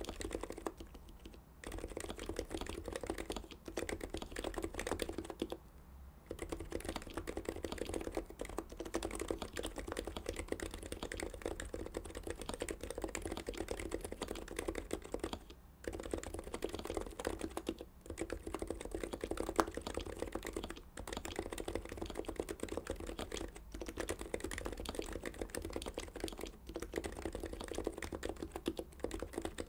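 Fast, continuous typing on a Heavy-9 keyboard with Topre-style rubber-dome switches (Deskey sliders and BKE-style domes on a stainless steel plate), with brief pauses every few seconds.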